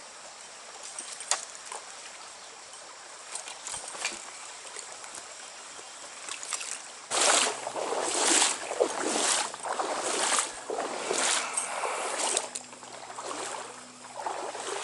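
Stream water running steadily. About halfway through, loud sloshing splashes start, roughly one a second, as legs wade through the current.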